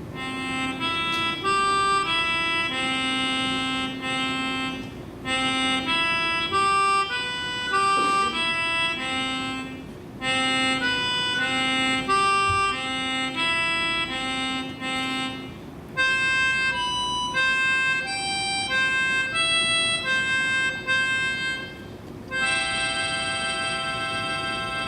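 Instrumental music: a slow tune of held notes and chords on a reed instrument, played in phrases with short breaks between them.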